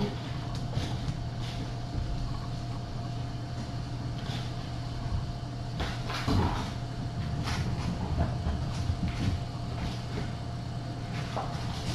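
Kittens scampering and playing on the floor and cat furniture: scattered small thumps, knocks and rattles over a steady low room hum.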